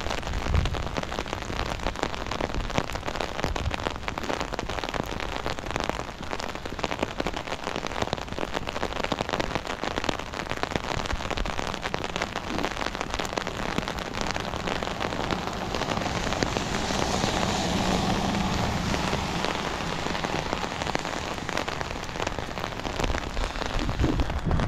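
Rain falling on an umbrella canopy held just over the microphone: a dense, steady crackle of drops striking the taut fabric. It swells for a few seconds about two-thirds of the way through.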